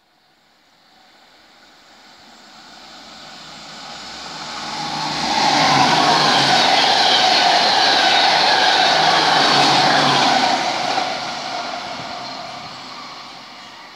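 Yellow-and-blue NS passenger train running through the station without stopping: its wheel-on-rail noise builds up as it approaches, is loud for about five seconds while the carriages pass close by, then fades as it draws away.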